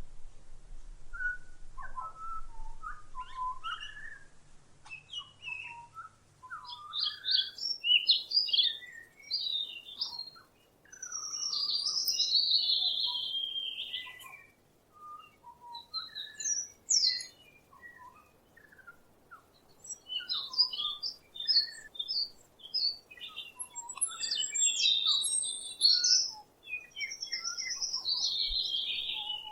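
Wild songbirds singing: a busy run of chirps and warbled notes, with two longer phrases that slide down in pitch, one about a third of the way in and one near the end.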